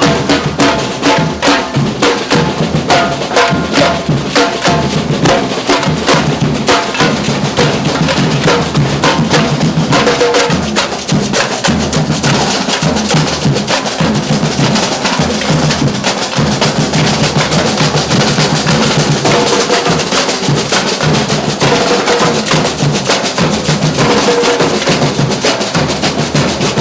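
Street drum band playing, many drums struck together in a dense, unbroken rhythm.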